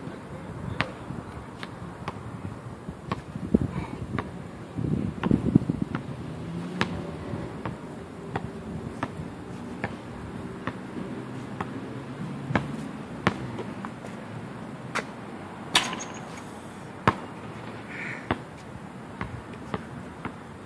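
Basketball bouncing on an outdoor concrete court: sharp single bounces at uneven gaps of roughly a second, with one louder, sharper hit about three quarters of the way through.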